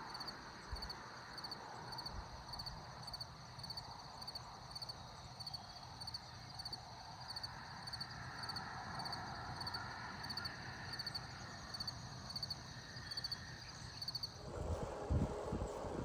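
Crickets chirping steadily, about three chirps a second, over quiet rural background. About a second and a half before the end the chirping gives way to wind on the microphone and low knocking.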